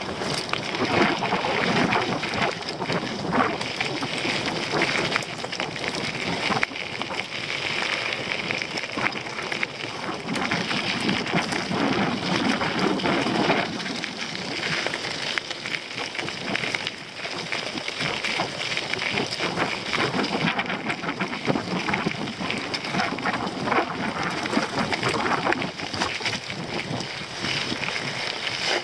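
Mountain bike descending a rocky dirt trail: tyres rolling and crunching over dirt and stones, the bike rattling over rough ground, with steady wind buffeting on the camera microphone.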